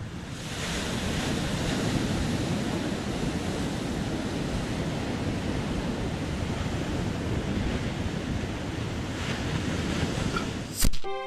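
Ocean surf breaking on the shore with wind buffeting the microphone, a steady rushing noise. Near the end a sharp click, the loudest moment, and music begins.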